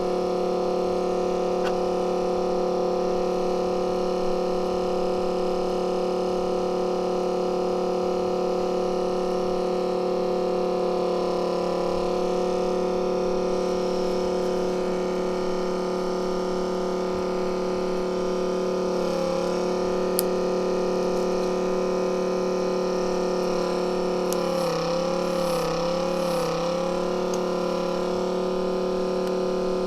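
Steady electrical machine hum made of several constant tones, with the pitch wavering briefly a few times in the second half.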